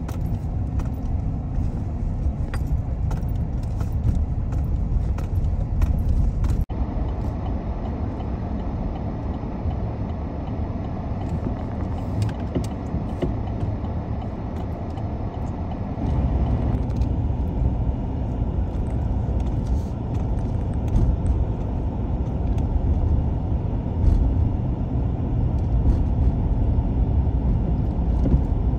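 A car driving: steady low rumble of road and engine noise, with small light clicks and rattles over it, most of them in the first several seconds. The rumble grows a little louder about halfway through.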